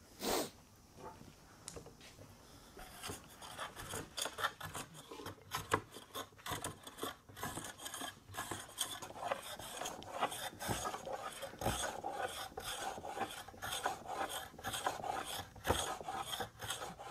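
Metal bench hand plane being pushed in repeated strokes across a wooden slab, its blade shaving the surface with a rasping, scraping sound. The strokes start about three seconds in and grow more frequent and louder as the planing goes on.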